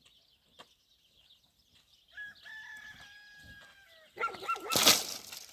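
A rooster crows once in a long held call about two seconds in. It is followed by a louder, rougher noisy burst just after four seconds.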